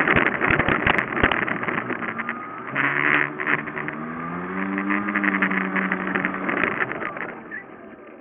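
Small vehicle engine running while travelling over grass, with a dense rattle. Its pitch climbs about three seconds in, holds, then fades near the end.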